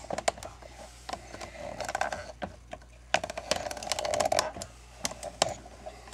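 Irregular sharp clicks and taps, some in quick runs about two seconds in and again from about three to four and a half seconds, over a steady low hum.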